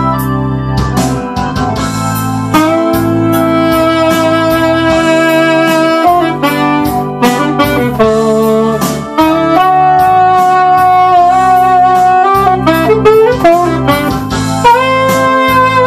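Saxophone playing a melody over a synthesizer keyboard backing with drums; the saxophone comes in about two and a half seconds in.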